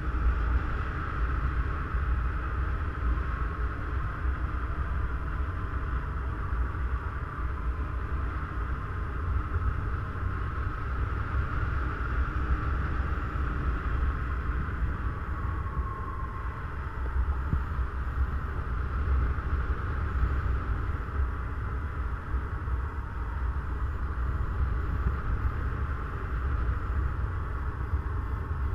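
Steady rush of airflow over the microphone of a camera carried by a paraglider in flight, a constant low buffeting rumble with a hiss above it.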